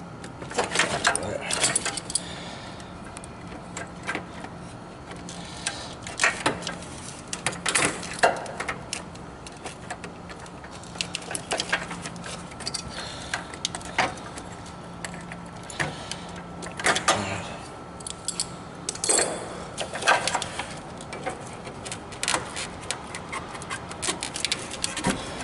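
Scattered metallic clinks, clicks and knocks of hand tools and fittings as a radiator hose and its spring clamp are worked loose, over a steady low hum.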